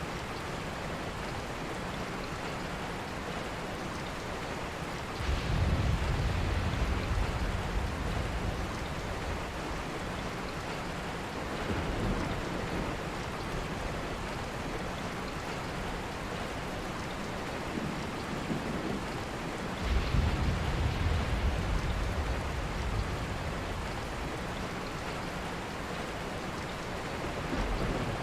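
Steady rain falling, an even hiss of drops. Deep low rumbles swell up twice, about five seconds in and again about twenty seconds in, each lasting a few seconds.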